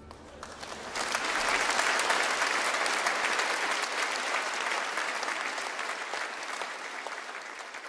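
Audience applauding after the music stops, the clapping swelling about a second in and slowly dying away.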